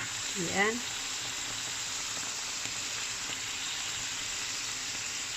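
Eggplant with a ground-beef filling sizzling steadily in oil in a frying pan, with one sharp click right at the start.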